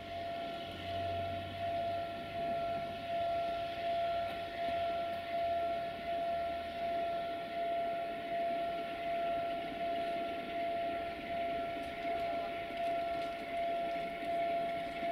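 Railway locomotive at a station: a steady whine with a rhythmic swell about once a second over a running mechanical noise.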